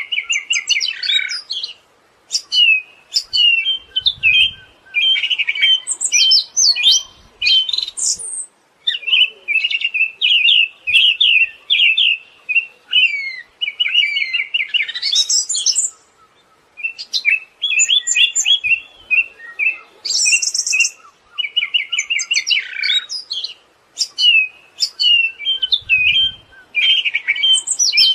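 Siberian thrush singing a long, varied song of rapid chattering trills and sharp whistled notes, delivered in phrases of several seconds with short pauses between them.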